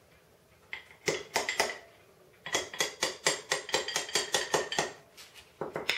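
Small hammer tapping on the steel auger shaft of a Craftsman snow thrower to drive the brass main drive gear off it, each blow a sharp metallic ring. A few blows come about a second in, then a quick run of about fourteen at roughly five a second, then two or three more near the end.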